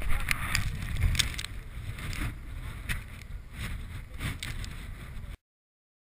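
Wind buffeting the camera's microphone, a low rumbling hiss with a few faint knocks; the sound cuts off to silence about five seconds in.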